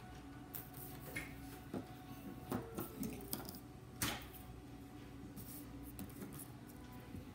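A sheet of cardboard handled on a wooden table: scattered rustles and scrapes, with a sharp tap about four seconds in as it is laid flat.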